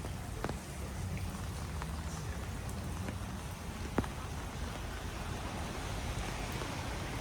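Heavy rain falling steadily, with scattered sharp drop taps and one louder tap about four seconds in.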